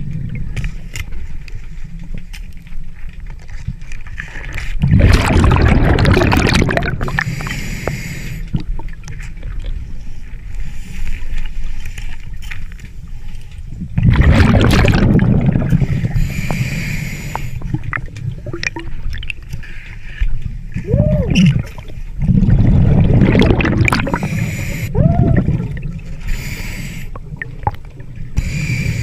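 A scuba diver breathing through a regulator underwater: three loud rushes of exhaled bubbles about eight seconds apart, over a steady low rumble of water.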